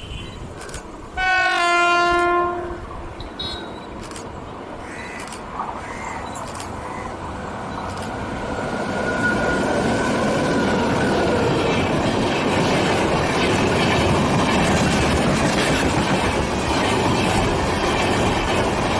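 A WAP7 electric locomotive sounds its horn once, a blast of about a second and a half. Then the express train draws up and passes, its rumble building from about eight seconds in into a loud, steady run of wheel noise and clickety-clack over the rail joints.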